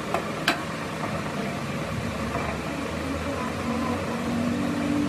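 Two sharp metal clinks close together near the start, the second louder, as a steel bearing is set down on a metal workbench among hand tools, over a steady workshop hum.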